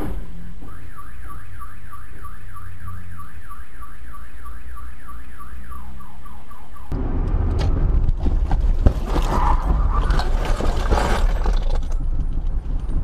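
Car alarm sounding: a rapid, repeating sweeping electronic tone, about three to four sweeps a second, over a low steady hum. About seven seconds in it cuts abruptly to loud rumbling noise with several knocks.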